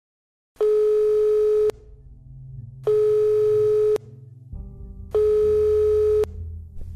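Telephone ringing tone: three steady beeps, each a little over a second long, about two seconds apart, with a low hum coming in under them about halfway.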